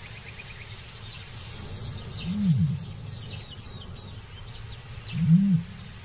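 Male ostrich booming: two short, low calls made with the throat pouch, each rising then falling in pitch, one about two seconds in and one near the end. This is the male's territorial and courtship call, with faint high chirping behind it.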